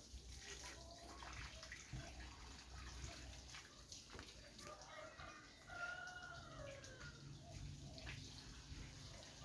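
A rooster crowing faintly in the background: one long arching call about six seconds in, over faint outdoor ambience with small ticks.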